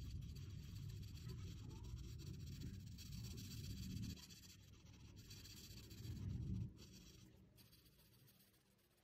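Felt-tip marker rubbing across paper in colouring strokes. The strokes stop about four seconds in, and a short burst of strokes follows a couple of seconds later.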